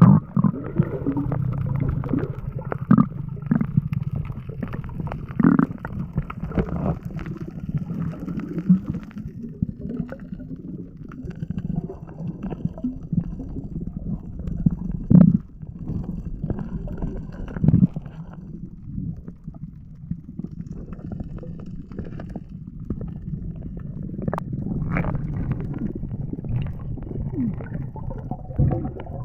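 Muffled underwater sound from a submerged camera: a steady low rumble and gurgling of water, with scattered knocks.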